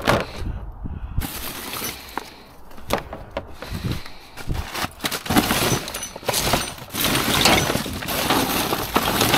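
Rummaging through junk in a dumpster: hard scrap and debris clattering and clinking, with many irregular knocks.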